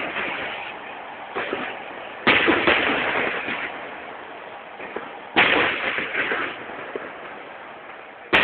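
Fireworks going off: two loud bangs about three seconds apart, each dying away over a second or two, with smaller pops in between.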